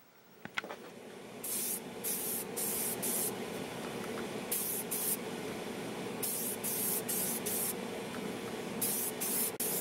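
Aerosol spray paint cans hissing in short bursts, about a dozen in quick groups of two or three, over a steady low hum.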